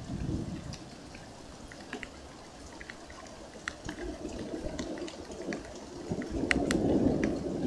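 Distant thunder rumbling low, swelling loudest near the end, over rain with scattered sharp drips close to the microphone.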